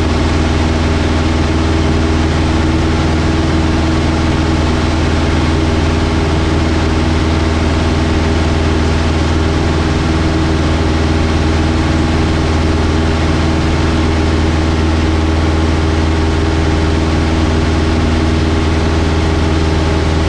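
Single piston engine and propeller of a Robin DR221 light aircraft running steadily at climb power just after takeoff: a loud, even drone that does not change in pitch or level.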